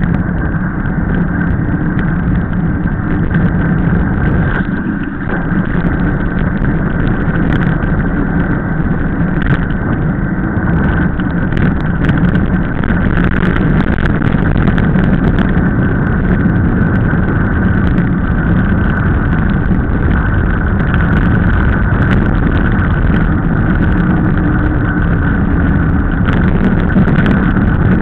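Wind rushing over the bike-mounted camera's microphone together with tyre noise on rough asphalt during a fast mountain-bike descent: a loud, steady rumble with scattered small rattles and clicks.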